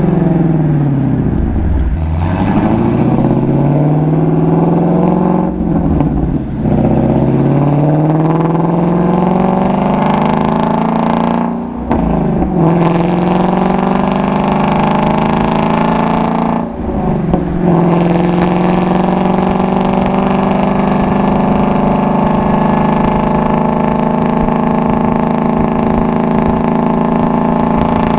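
Ford Shelby GT350's 5.2-litre flat-plane-crank V8 and exhaust accelerating up through the gears. The revs climb and drop back with a short dip at each upshift, three times, then the engine settles into a steady cruise for the second half.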